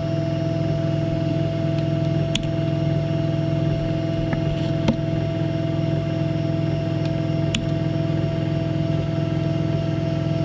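DaVinci 1.0 3D printer humming steadily with its fans running as it cools down after a finished print, with a few light clicks.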